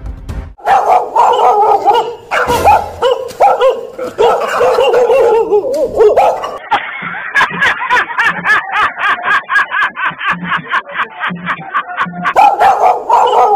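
Fake dog barking: an aggressive stretch of dense barking, then quick short barks at about four a second from about halfway, then a loud burst of barking again near the end.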